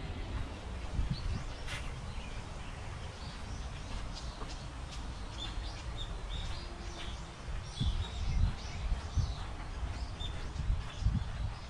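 Small birds chirping, short calls scattered throughout, over a low, uneven rumble that swells a few times in the second half.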